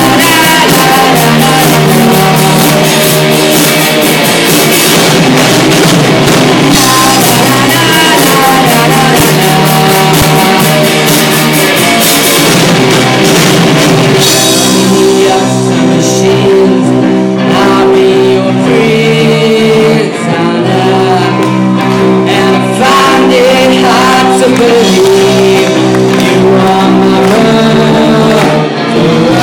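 Rock song with singing over guitar and drums. The drums and cymbals thin out about halfway through, leaving held chords under the voice.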